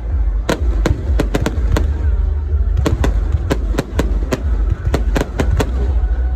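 Fireworks display: aerial shells bursting in quick, irregular succession, well over a dozen sharp cracks, some in close pairs and triplets, over a steady low rumble.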